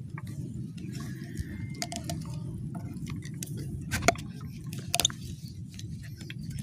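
Handheld camera handling noise: a steady low rumble with scattered clicks and knocks, the loudest about four seconds in as a hand sweeps across the lens, and another sharp one about a second later.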